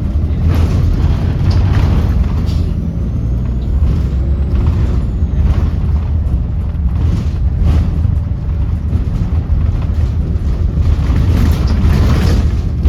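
Volvo D7E diesel engine of a Volvo B7RLE bus running under way with a steady low drone, and a faint high turbo whine that rises and then falls a few seconds in.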